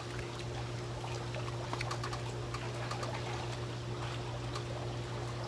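Pan of whole squid in its ink simmering in a shallow layer of liquid on a portable gas stove, bubbling with small irregular crackles over a steady low hum.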